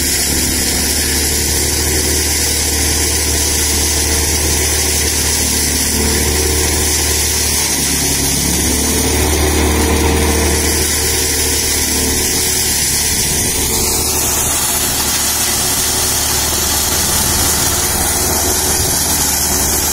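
Straw-collecting blower machine running steadily: an electric motor belt-drives a fan that sucks straw chaff (bhusa) through a flexible hose and blows it up a delivery pipe. The sound is a constant low hum under a steady rush of air and straw.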